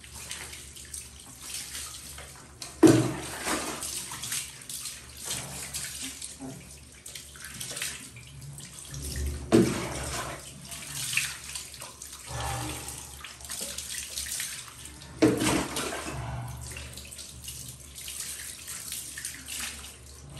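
Water scooped from a plastic tub with a plastic mug and poured over a wet shih tzu onto a tiled bathroom floor. Three loud pours or splashes come a few seconds apart, with softer sloshing and trickling between them.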